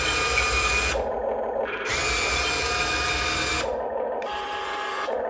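Diecast Masters 1:20 CAT 330D L remote-control excavator working its boom and bucket with the sound module on: electric motors whirring together with played-back hydraulic hiss and squeak effects. It comes in bursts of about two seconds, the first ending about a second in, a second from just under two seconds to nearly four, and a softer one near the end.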